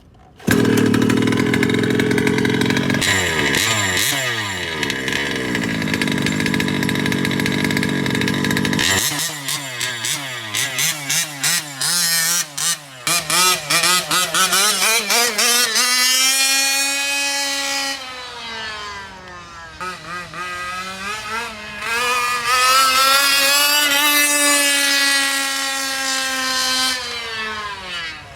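Zenoah 32cc two-stroke engine with a tuned pipe in a 1/5-scale RC truck. It comes in suddenly, runs steadily for several seconds, then revs up and down repeatedly, its pitch rising and falling as the throttle changes.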